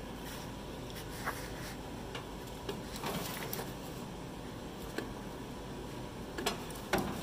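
Gloved hands working wires of an old combine's wiring harness loose: faint scattered clicks and rustles of wires and connectors, over a steady low hum.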